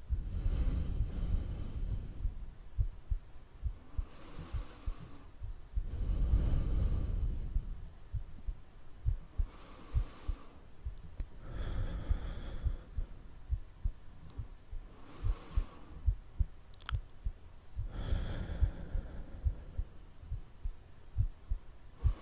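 A person's slow breathing: long, soft breaths that swell and fade every two to four seconds, over a steady run of short, soft low thumps.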